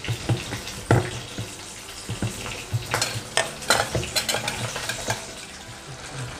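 A hand squeezing and mixing a wet paste of rohu fish roe, gram flour and spices in a steel bowl: an uneven run of short, wet squelches and clicks.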